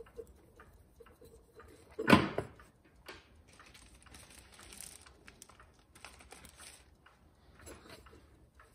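Faint rubbing of a polishing cloth on a brass clock bezel, with one short, loud knock about two seconds in.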